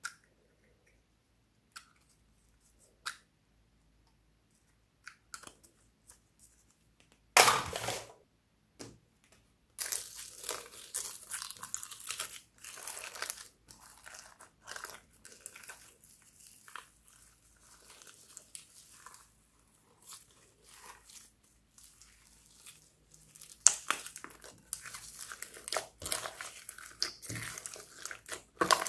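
Slime mixed with foam beads and sequins being squished, folded and kneaded by hand, giving an irregular crunchy crackle. The first few seconds hold only a few faint clicks, then a loud crunch about seven seconds in, with continuous crackling squishing from about ten seconds, heaviest near the end.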